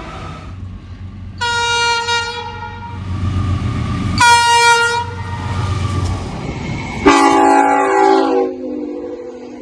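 Train air horn sounding two blasts, about a second each, over the low rumble of the train. About seven seconds in, a different horn cuts in abruptly and then settles to a softer held tone.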